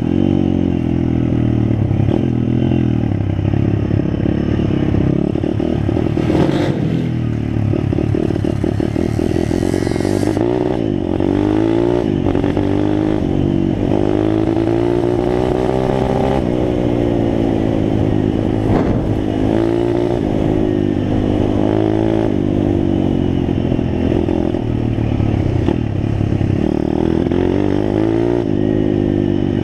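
Small dirt bike's engine, heard on board, revving up and down repeatedly as it rides, with its pitch rising and falling through the gears. Gravel clattering and scraping under the tyres runs underneath.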